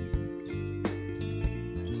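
Background music with plucked guitar and a steady beat.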